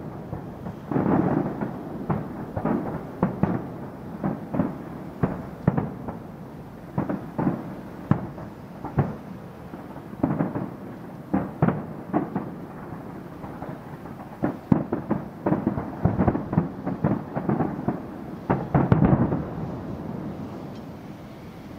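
Fireworks display: aerial shells bursting in quick succession, a long string of booms and sharp cracks, each trailing an echo. The bangs come thickest and loudest about three-quarters of the way through, then die away near the end.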